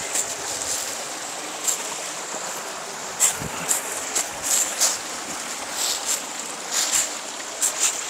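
Shallow stream running over rocks, with irregular sharp clicks of footsteps on loose stones.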